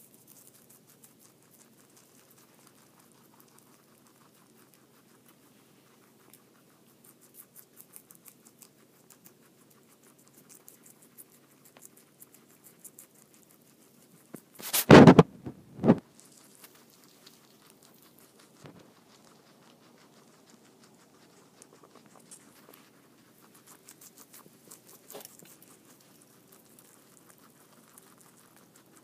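Two guinea pigs chewing red cabbage leaves: a steady run of small, quick, crisp crunches. Halfway through, two loud knocks come less than a second apart.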